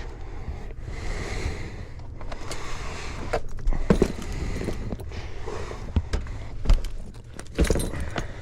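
Rustling, scraping and several sharp knocks and clinks from someone moving through a cramped access space, over a steady low hum.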